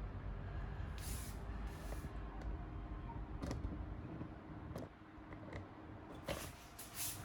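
Packaging being handled: a couple of brief rustling swishes followed by scattered light clicks and knocks, with a low hum in the background for the first few seconds.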